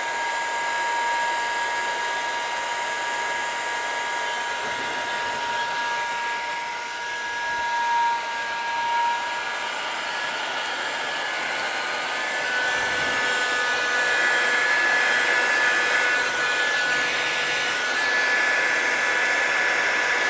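Electric heat gun (Bosch hot-air gun) blowing steadily, set to about 250 degrees to heat lifting brass inlay and soften the glue beneath it. Its fan whine changes pitch about halfway through, and it is a little louder after that.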